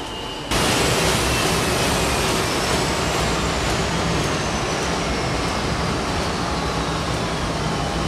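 Heidelberg sheetfed offset printing press running: a loud, steady mechanical rush that starts abruptly about half a second in, with faint whining tones that slowly fall in pitch.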